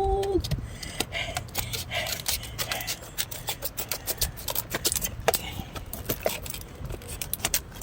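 Irregular clicks, clinks and rattles of gear being handled, over a low rumble of wind on the microphone.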